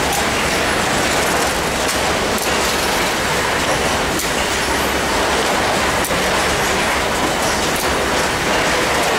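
Chocolate-bar production line machinery running: a loud, steady mechanical rattle from the conveyors and the pusher transporter, with a sharp click every second or two.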